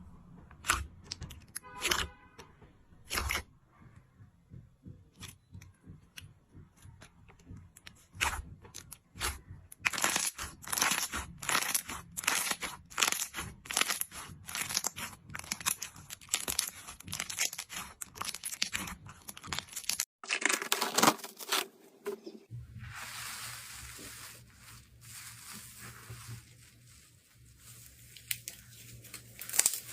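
Slime being played with by hand, giving a run of sharp crackling snaps and pops, sparse at first and then several a second from about ten seconds in. After a sudden break near twenty seconds the sound changes to a softer, continuous crinkling over a low hum.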